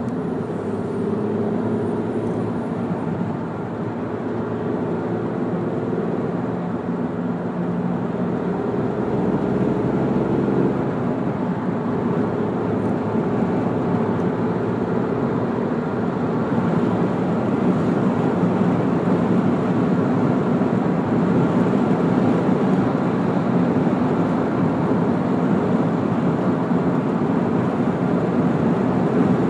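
Car driving on a motorway, heard from inside the cabin: a steady hum of engine and tyre-on-road noise. A few engine tones stand out in the first third, then the road noise grows slightly louder.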